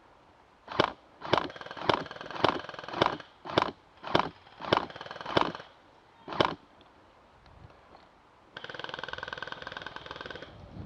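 Airsoft electric gun firing: about ten short bursts, roughly one every half second, then one long full-auto burst of about two seconds near the end.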